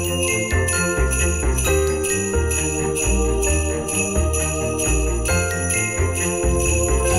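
Background music with jingle bells shaking to a steady beat over bass and melody notes.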